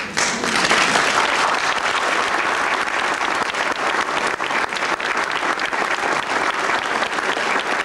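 An audience applauding, starting all at once and going on with steady clapping.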